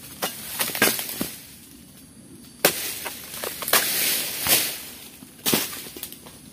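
Long-poled harvesting sickle cutting through oil palm frond stalks: several sharp cracks about a second apart, with a rustling swish of leaves as a cut frond falls about midway.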